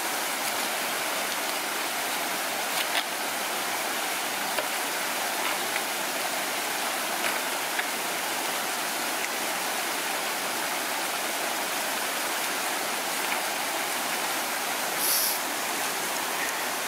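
Shallow mountain brook rushing steadily over and around rocks, with a few faint clicks and a short hiss about fifteen seconds in.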